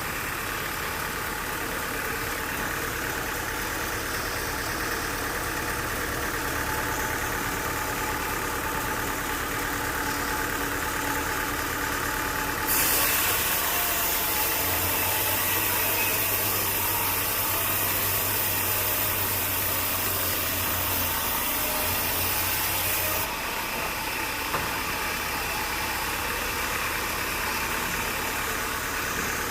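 Sawmill engine running steadily. About 13 seconds in, a louder, hissing sound starts abruptly over it, with a deep hum joining soon after; both stop abruptly about ten seconds later.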